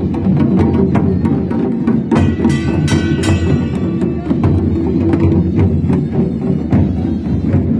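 Music with drums and percussion struck throughout, and a pitched instrument coming in clearly for a couple of seconds about two seconds in.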